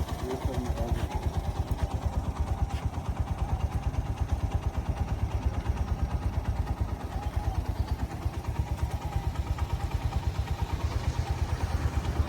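Motorcycle engine running steadily, its exhaust giving an even, rapid low pulsing throughout.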